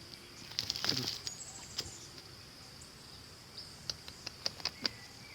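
A steady high-pitched insect drone, with scattered sharp clicks and taps about a second in and again in a quick run near the end.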